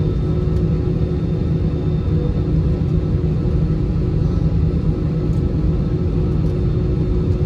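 Cabin noise inside an Airbus A320-216 taxiing, heard from a window seat over the wing: a steady low rumble from its CFM56 engines and rolling gear, with a few faint steady whine tones above it.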